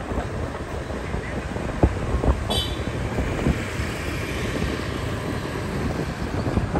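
Street traffic and road noise heard on the move: a steady low rumble of engines, tyres and wind. There are a couple of sharp knocks about two seconds in and a brief high beep soon after.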